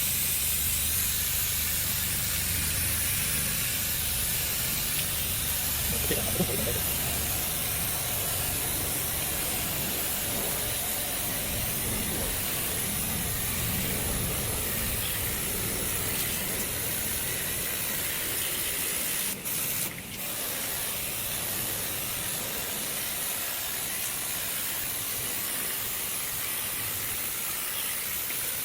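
Steady hiss of water spraying onto the disassembled window air conditioner's parts to wash off the mold, briefly broken twice about twenty seconds in.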